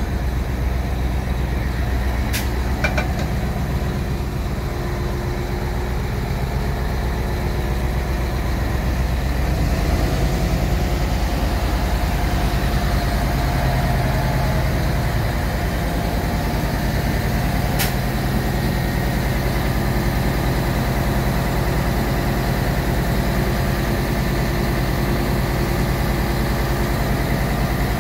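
Diesel engine of a Wirtgen W1900 cold milling machine running steadily at idle, with a low, even drone. Its note shifts slightly about ten seconds in, and two sharp clicks sound, one early and one past the middle.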